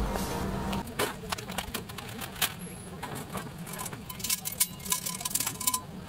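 Stainless steel folding fire pit being assembled: irregular light metal clinks and rattles of its panels and grate, some ringing briefly. Background music fades out in the first second.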